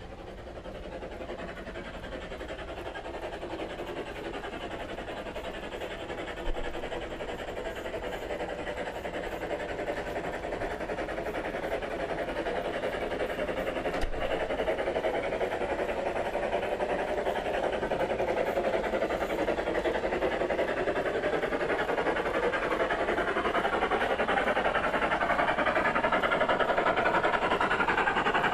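Long G-scale model freight train rolling along the track, its wheels making a steady rumble that grows steadily louder as the train approaches and its cars pass close by. A single sharp click about six seconds in.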